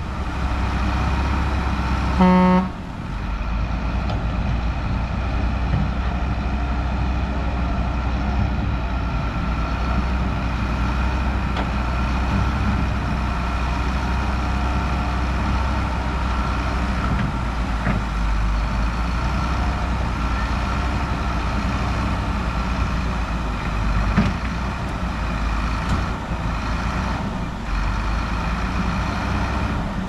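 Heavy diesel earthmoving machinery running steadily under load, with a short horn toot about two seconds in.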